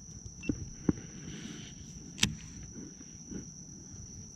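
A steady high-pitched insect trill, with a few light knocks and a sharper click about two seconds in.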